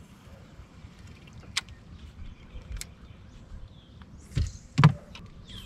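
Handling noises on a bass boat's deck: a few sharp clicks and two dull thumps about four and a half seconds in, the second the louder, over a low rumble of wind and lapping water.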